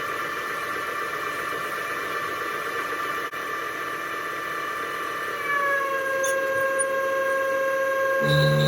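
Milling machine with a 1/2-inch four-flute end mill cutting into a lathe tool blank, giving a steady high-pitched squealing whine over a noisy cutting sound. The pitch dips slightly about five and a half seconds in, and a deeper hum joins near the end. The material is harder than expected and the cutter is struggling in the cut.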